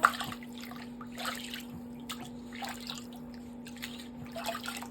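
Bath water splashing and dripping in short, irregular bursts while a small dog is washed, over a steady low hum.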